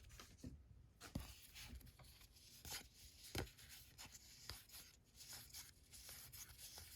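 Near silence with faint, scattered soft taps and rubbing of baseball cards being flipped through and slid against each other by hand.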